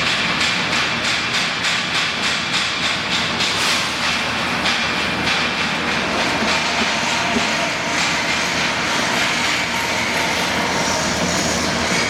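Maize milling machine running: a loud, steady mechanical din with a rhythmic clatter in the first few seconds.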